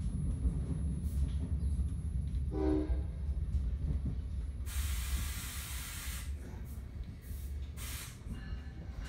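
Steady low rumble of a moving commuter train heard from inside a Bombardier MultiLevel coach. A short faint tone comes a little before three seconds in, and a loud burst of air hiss starts about five seconds in and lasts about a second and a half.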